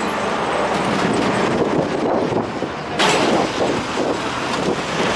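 Road traffic crossing a level crossing: trucks and cars running past and rumbling over the rails. The sound changes abruptly about three seconds in.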